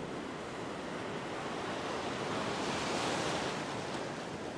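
Ocean surf washing in shallow water: a wave's whitewash swells up a little after halfway through and then eases off.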